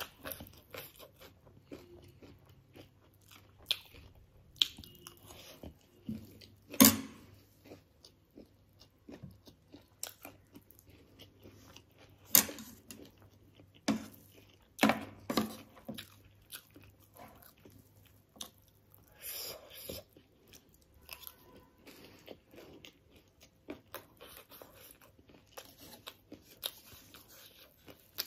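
Close-miked crunching bites and chewing of spicy chatpate and crisp gol finger (dhungri) snacks, with irregular sharp crunches, the loudest about seven, twelve and fifteen seconds in, and softer chewing between.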